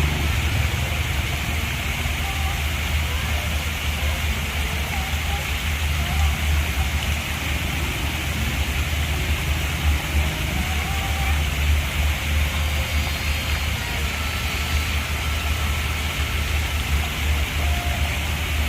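Waterfall rushing steadily, an even hiss of falling water over a constant low rumble.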